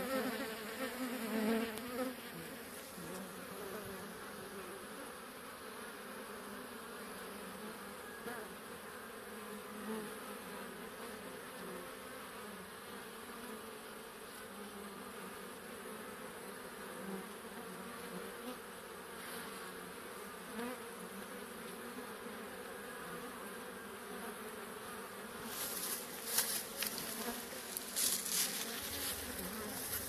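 Honeybee swarm buzzing steadily, a continuous low hum. Near the end, crackling rustles as grass is brushed and handled close to the microphone.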